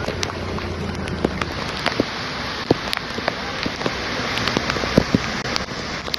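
Heavy rain falling: a steady hiss of rain with many sharp drops hitting close by.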